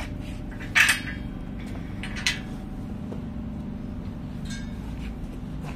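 Metal clinks and clanks of steel frame parts and bolts being handled during assembly: a sharp clank about a second in, a smaller one a little after two seconds, then a few faint clicks, over a steady low hum.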